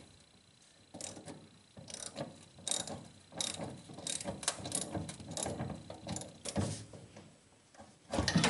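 Socket ratchet on an extension clicking in short, uneven swings as a heavy bolt is tightened down, with a louder knock near the end.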